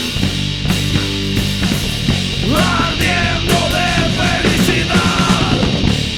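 Rock band playing live, with drums, bass and distorted electric guitars. From about two and a half seconds in, a higher line slides up and bends in pitch for a few seconds.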